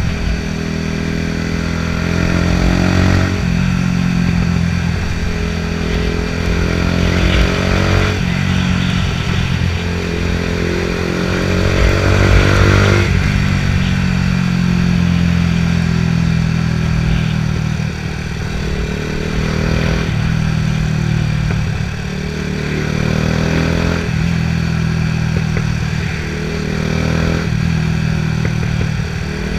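Yamaha R125's 125 cc single-cylinder four-stroke engine, breathing through a Scorpion exhaust with no dB killer, revving. Its pitch climbs over a few seconds and then drops back, about six times over.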